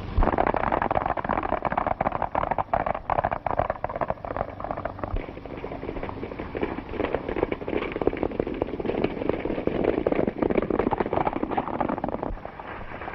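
Hoofbeats of several horses galloping: a dense, rapid, irregular clatter that eases slightly near the end.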